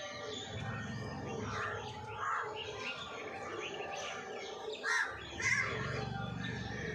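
Birds calling around an open yard: crows cawing among smaller birds chirping, with two louder calls about five seconds in.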